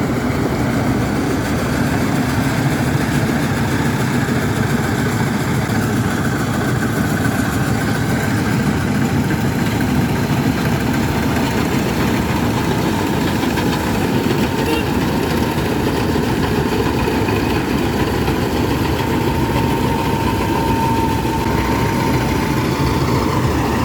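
Rice combine harvester running steadily as it harvests, its engine and threshing mechanism making one continuous drone, with a faint whine rising above it near the end.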